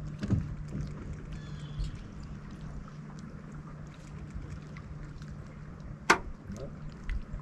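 Low steady hum of an electric trolling motor, with a faint wash of water against the boat and one sharp click about six seconds in.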